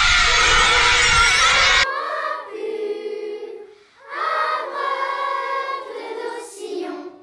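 A group of children shouting and cheering, cut off abruptly after about two seconds by children singing together in held notes, with a short break near the middle.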